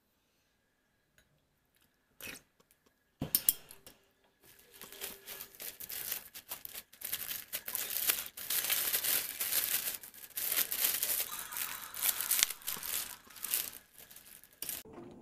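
A small click about two seconds in and a sharp knock a second later, then about ten seconds of continuous crinkling and tearing of wrapping that stops shortly before the end.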